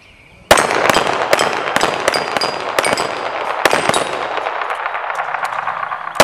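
Rapid pistol fire from two shooters racing each other, starting suddenly about half a second in, with shots coming roughly two to three a second. Steel plate targets give short metallic pings as they are hit and knocked down, and the shots echo off the range walls.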